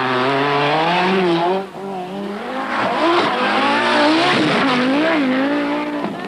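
Group B rally car engine revving hard. Its pitch climbs, breaks off briefly as the throttle lifts about a second and a half in, then rises and falls several times as it is driven through the stage.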